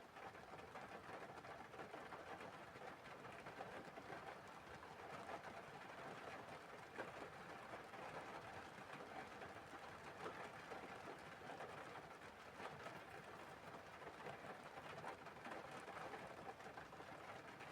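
Faint, steady wind ambience with small swells, a soft hiss with no distinct events.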